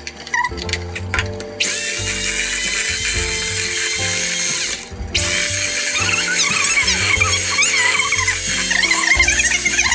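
Electric hand mixer with flat beaters creaming mascarpone cheese in a glass bowl. It starts about a second and a half in, cuts out briefly around the middle, then runs on steadily.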